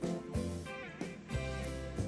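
Background music, a guitar-led tune with a bass line and a steady beat.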